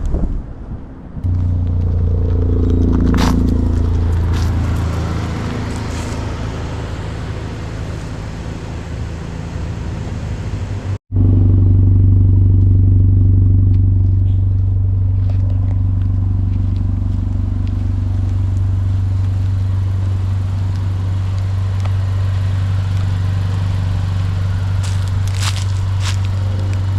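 Acura Integra 1.5-litre turbocharged four-cylinder running through an EOS axle-back exhaust with a steady low drone. Its pitch dips and climbs again about three seconds in. After a brief dropout about eleven seconds in, it comes back louder and holds steady.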